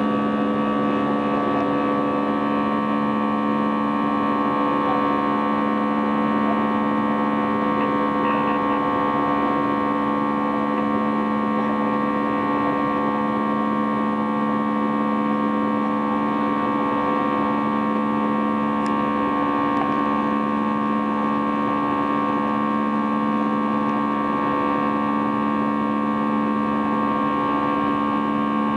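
Airbus A320's twin jet engines heard from inside the cabin during the climb after takeoff: a steady drone with several constant humming tones that do not change.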